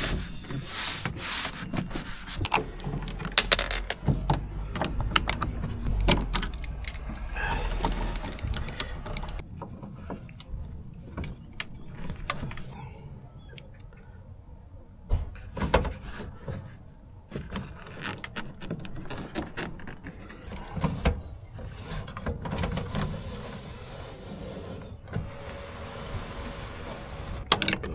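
Irregular clicks, knocks and clatter of hand work on a Talbot Express van's door and door lock, louder in the first few seconds and in bursts around the middle.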